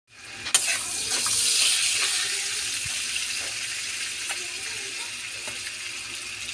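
Melted butter sizzling in a hot pan, a steady hiss that slowly eases off, with a sharp click about half a second in.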